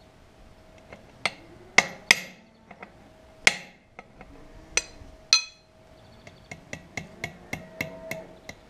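Steel hammer blows on a cold chisel set against a tractor's front wheel hub nut, driving the nut tighter on a newly fitted wheel bearing. About half a dozen hard, ringing metal strikes come first, then a run of quicker, lighter taps.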